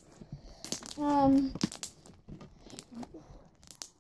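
Homemade slime being squished and stretched by hand, making short wet crackling and popping sounds. A brief pitched vocal sound about a second in.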